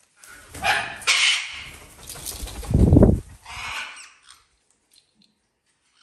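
A cockatoo and a fennec fox squabbling: harsh, rough animal cries in three loud bursts over about four seconds, the middle one with a heavy low thump, then they stop.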